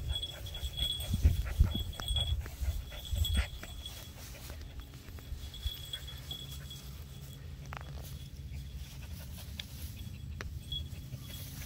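Shetland Sheepdog puppies panting and scuffling in a tug-of-war over a rope toy, busiest in the first few seconds.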